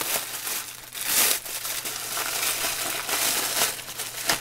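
Clear plastic bags crinkling as they are handled and pulled open, with small component bags being taken out, in irregular bursts of rustling, the loudest about a second in.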